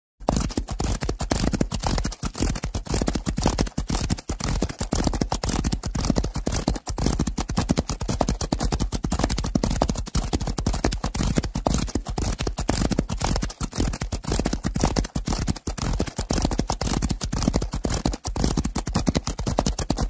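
Sound effect of a herd of horses galloping: many hoofbeats overlapping in a fast, continuous patter.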